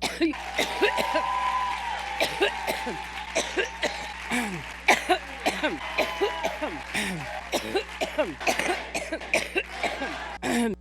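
A woman's coughing fit: many short, hoarse coughs in quick succession, each dropping in pitch, over a steady background hiss.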